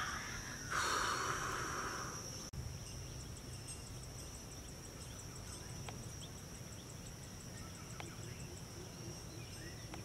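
Insects droning steadily at a high pitch, joined from about three seconds in by a fast, even chirping. A short breathy rush of noise sounds near the start.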